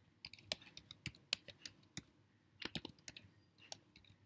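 Typing on a computer keyboard: quick, irregular keystroke clicks, with a short pause about two seconds in before another run of keys.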